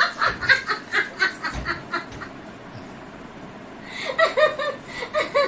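A woman laughing hard while being tickled, in quick rhythmic bursts that die down about two seconds in and start up again near the end.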